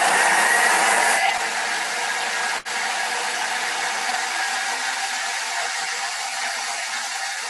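Thermomix kitchen robot blending raw carrot and dressing at its top speed of 10: a loud, steady whir, slightly louder for the first second or so, with a brief dropout about two and a half seconds in.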